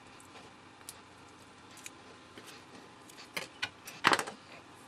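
Small clicks and light scrapes as the layers and small parts of a dismantled electrochemical gas sensor are handled and set down on a work surface. There are a few sparse ticks at first, then a denser run of clicks and a short scrape about three to four seconds in.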